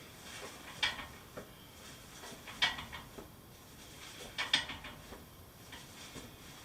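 Scattered scrapes and clicks of someone moving about on rock inside a small cave, with three louder sharp knocks about one, two and a half, and four and a half seconds in.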